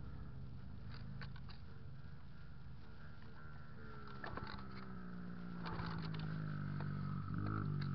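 125cc pit bike engine running, its pitch and loudness climbing in the second half as it revs up, with a few short knocks and rattles.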